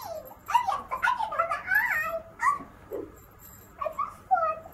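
High-pitched whimpering, yipping vocal squeaks from a puppeteer voicing a sock puppet. A string of short calls rises and falls in pitch, breaks off for about a second near three seconds in, then starts again.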